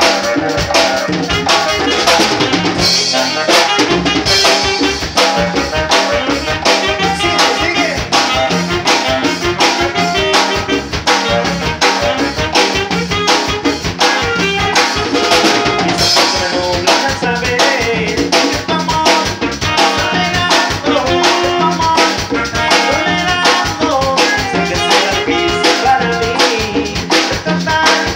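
Electronic keyboards playing an upbeat dance tune over a steady drum beat; the bass and kick drop out briefly about three seconds in, then the beat comes back.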